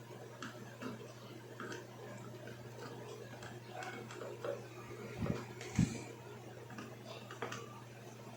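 Small irregular clicks and light scraping of a metal tool picking stray solder off a circuit board, over a steady low hum. Two duller knocks come a little past the middle.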